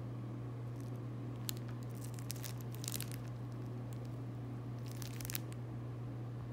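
Clear plastic sandwich wrapper crinkling and tearing as it is handled and opened, in a few short crackles, busiest about two to three seconds in and again around five seconds, over a steady low hum.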